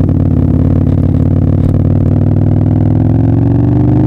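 Harley-Davidson Destroyer drag bike's V-twin engine running at low speed, its pitch rising slightly near the end as it picks up speed.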